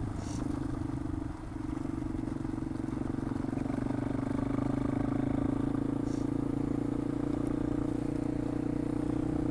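Yamaha XT225's single-cylinder four-stroke engine running at a steady pace while the bike is ridden, with a brief dip in level about a second and a half in.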